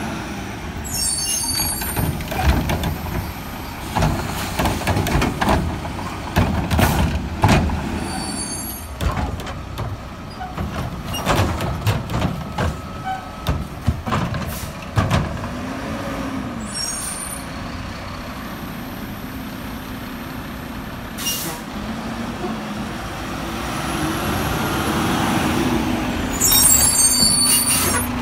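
Front-load garbage truck fitted with a Curotto-Can cart arm working a street: its diesel engine runs throughout, and its air brakes hiss several times as it stops and pulls away between carts. Knocks and clanks come through the first half, and a rising hydraulic hum builds near the end as the arm reaches out for a cart.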